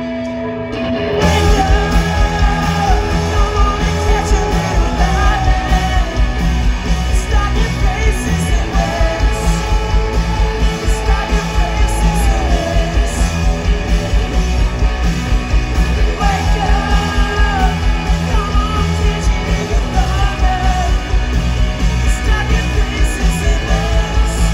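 Live rock band playing loud: drums and bass come in heavily about a second in, with electric guitar and a male lead singer singing over a steady beat.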